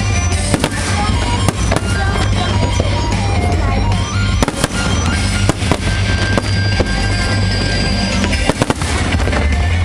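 Aerial fireworks going off in quick succession, a run of sharp cracks and bangs, over loud music playing on the festival's speakers.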